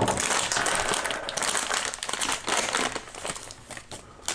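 A silvery anti-static bag and small clear plastic bags crinkling as hands handle and unpack electronic kit parts, loudest in the first couple of seconds and dying down near the end.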